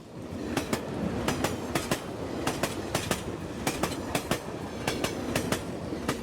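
Railway train rolling past, its wheels clacking over rail joints in quick pairs of sharp clicks above a steady rumble; the sound cuts off abruptly.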